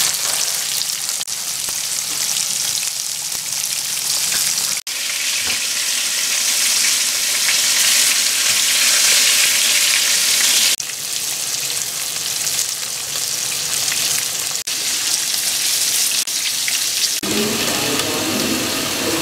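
Pieces of mackerel sizzling steadily as they pan-fry in hot oil, with the sizzle cutting off abruptly for a moment a few times.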